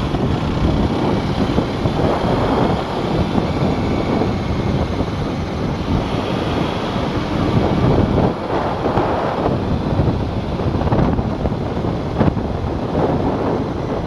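Wind rushing over the microphone of a moving Aprilia RS4 125, with the motorcycle's single-cylinder four-stroke engine running underneath as the bike gathers speed slowly.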